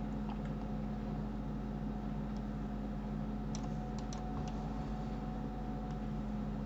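A handful of sparse, sharp computer key clicks over a steady low electrical hum.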